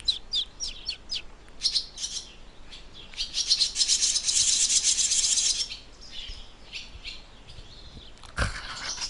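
Swallows calling: a run of quick falling chirps, then a loud, rapid twittering chorus lasting about two and a half seconds, then scattered quieter calls. There is a brief thump near the end.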